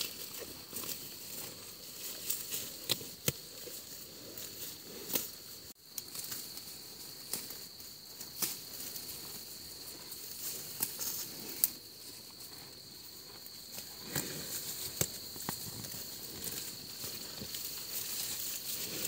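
Water buffalo cropping ferns and leafy plants close up: repeated sharp snaps and rustles as it tears off mouthfuls and chews. A steady high insect drone runs underneath.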